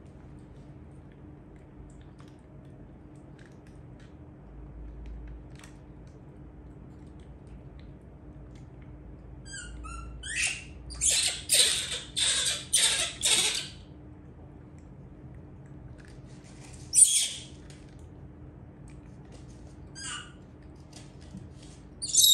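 Baby monkey squealing: a quick run of about five high-pitched squeals near the middle, then a few single squeals spaced apart.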